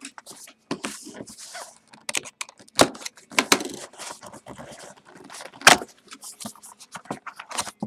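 A cardboard trading-card hobby box being handled and opened: rustling, scraping and light tapping of the cardboard, with sharper knocks about three seconds in and again near six seconds.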